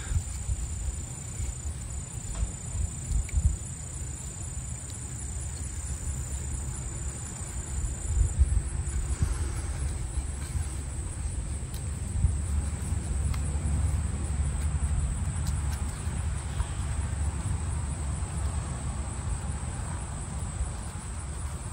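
Insects trilling steadily, with a low wind rumble on the microphone and faint handling of paracord on the bow.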